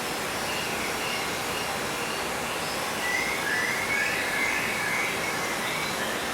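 Steady rushing outdoor background noise, with a bird's wavering high-pitched call, once briefly near the start and again for about two seconds from three seconds in.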